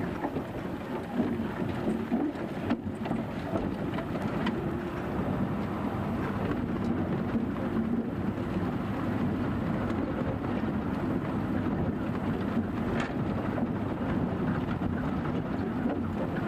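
Car engine running and road noise heard from inside the vehicle as it drives over a rough dirt street, with a few knocks and rattles in the first few seconds.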